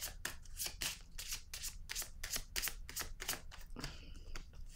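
Deck of tarot cards being shuffled by hand: a quick run of soft card flicks, several a second, thinning out near the end.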